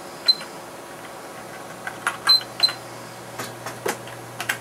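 Computer keyboard keystrokes: about ten sharp, irregular clicks, a few with a brief high ring, over a faint steady hum that comes in about a second in.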